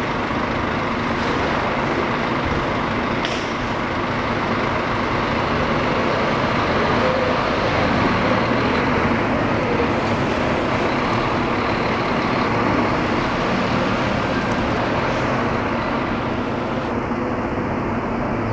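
Scania K410 coach's rear-mounted diesel engine running as the double-decker drives away: a steady drone that grows a little louder midway and eases off toward the end. A brief click about three seconds in.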